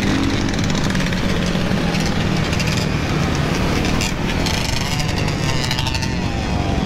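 Several ATV and dirt bike engines running together at road speed. Revs rise and fall about five seconds in.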